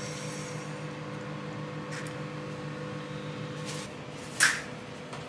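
Microwave oven running with a steady hum while porridge cooks inside, with a brief sharp noise about four and a half seconds in.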